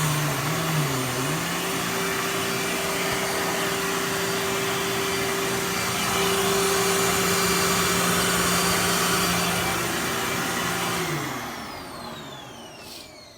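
Dirt Devil Ultra Vision Turbo vacuum cleaner running steadily, its motor pitch dipping briefly about a second in. Near the end it is switched off and the motor winds down with a falling whine.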